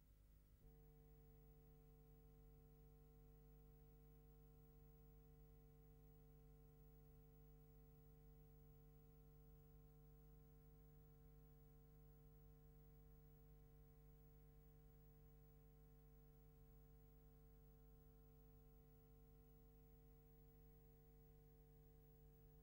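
Near silence with a faint, steady hum of several unchanging tones that comes in about half a second in.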